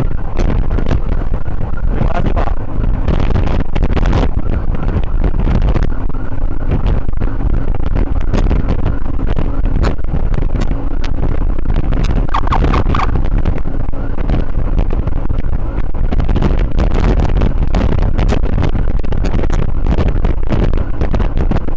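Motorcycle running on the road, its engine under heavy, steady wind rush on the microphone.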